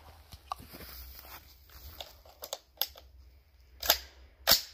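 AR-15-style rifle being handled: light clicks and rustling, then two sharp metallic clacks about half a second apart near the end, typical of the charging handle being pulled back and let go to chamber a round.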